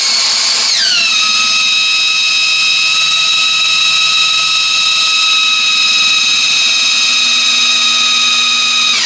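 Electric drill spinning a 12 V car alternator on a test stand: a loud, steady, high motor whine. About a second in its pitch drops and settles lower as the excited alternator takes on the load of a 21 W bulb. Near the end it winds down as the drill stops.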